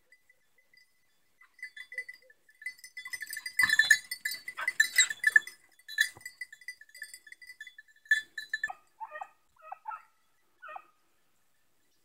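Bells on hunting dogs' collars (a beagle and a segugio) jingling in a steady, pulsing ring as the dogs move about. The ringing is loudest and clattering from about three and a half to six seconds in. A few short yelps come near the end.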